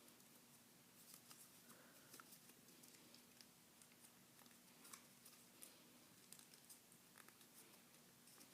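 Faint crackling and rustling of a sheet of paper being folded and creased by hand, in scattered small clicks from about a second in, over a faint steady hum.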